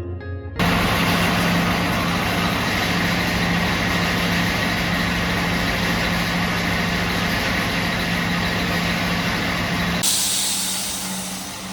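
Loud, steady rush of compressed air with a low hum under it. About ten seconds in it changes to a sharper, higher hiss.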